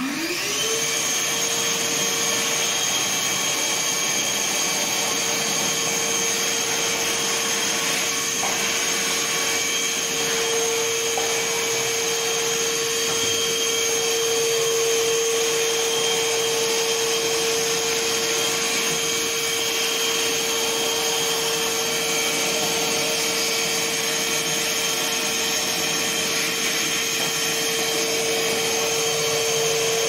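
Einhell TE-VC 18/10 Li cordless wet and dry vacuum cleaner switched on, its motor spinning up with a rising whine in the first second, then running with a steady whine and rush of air.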